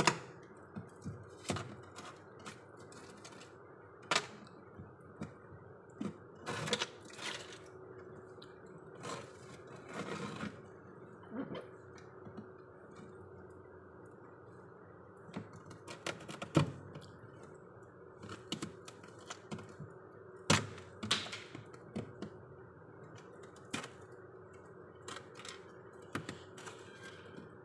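Freezer frost and ice cracking and clicking in irregular sharp snaps as fingers break it and peel it off the ribbed plastic floor of a freezer compartment, over a steady hum.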